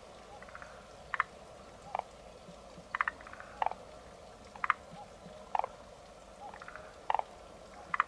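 Forest green tree frogs (Rhacophorus arboreus) calling at a breeding pond: short, sharp notes about once a second, several in quick pairs, with fainter rapid chattering calls from other frogs behind them.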